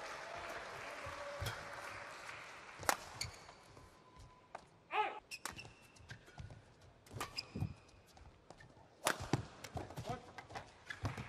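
Badminton rally: sharp smacks of rackets striking the shuttlecock, spaced a second or more apart, with shoes squeaking briefly on the court mat between shots.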